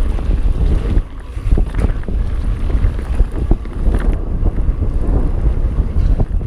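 Mountain bike descending a dirt trail at speed: wind buffeting the camera microphone over a deep rumble of tyres on hard-packed dirt and gravel, with scattered sharp knocks and rattles from the bike over bumps.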